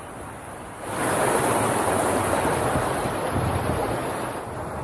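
A wave rushing in over rocks, a loud hiss of surf that swells about a second in and eases off near the end.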